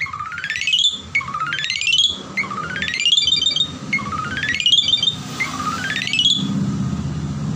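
Asian pied starling (jalak suren) giving an odd, repeated call: a buzzy rising sweep ending in a burst of short high notes, about every second and a half.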